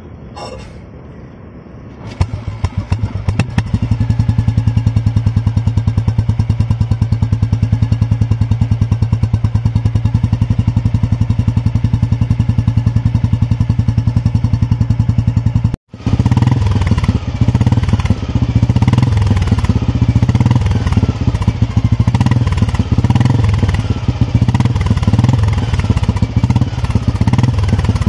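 Exhaust of a 1974 Royal Enfield Bullet 350 (B1) single-cylinder four-stroke engine, heard at the silencer. It idles with an even, rapid thump that builds over the first few seconds. After a short cut in the middle it runs louder and less evenly, the throttle blipped so the note rises and falls.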